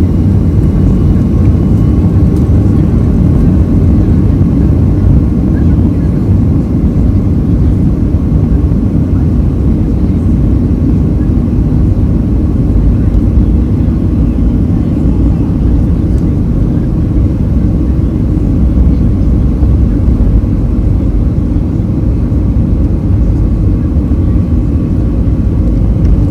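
Boeing 737-300 heard from inside the passenger cabin: a loud, steady, deep rumble of the CFM56 jet engines and airflow, with a faint steady whine above it, from an airliner under way after takeoff.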